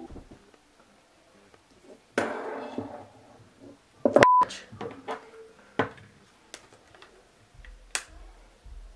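A phone and a plastic phone case being handled and pressed together: a scraping rustle about two seconds in, a short steady beep about four seconds in, then scattered light clicks and taps as the case is pushed onto the phone.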